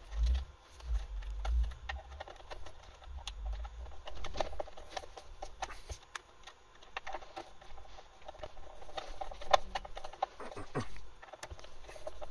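Small clicks and scrapes of wire ends being pushed into a variable frequency drive's screw terminal block and a screwdriver tightening the terminal screws, with low handling bumps in the first couple of seconds.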